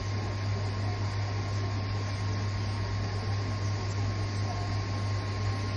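Steady hum and whirring of a YG300 mini projector's cooling fan blowing out heat, with a low drone and a faint high whine.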